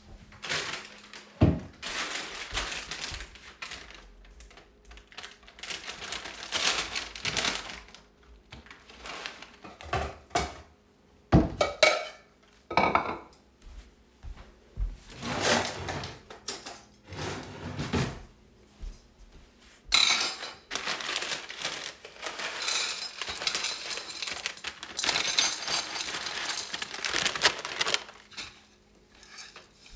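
Pots, pans and utensils clattering and scraping while breakfast is cooked, with irregular rustling stretches and several sharp knocks.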